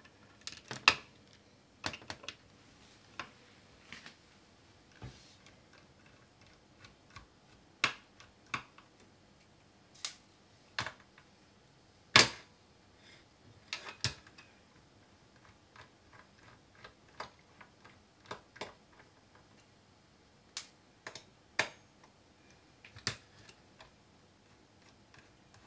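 Small T8 Torx screwdriver working the screws out of a hard drive's circuit board: irregular small metal clicks and taps, a few of them sharper and louder.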